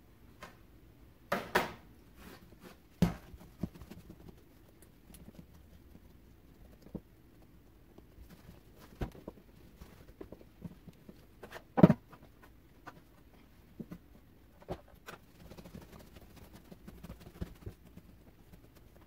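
Hands shaping whole wheat bread dough on a silicone baking mat: soft pats and rubbing of dough, with scattered knocks, a few louder ones near the start and the loudest about two-thirds through.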